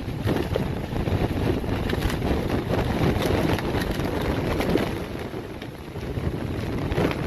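Strong wind buffeting the microphone: a dense rushing noise that rises and falls in gusts, easing briefly about five seconds in.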